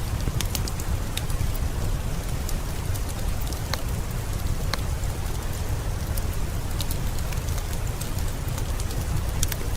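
Heavy rain falling steadily, with a deep low rumble underneath and scattered sharp ticks throughout.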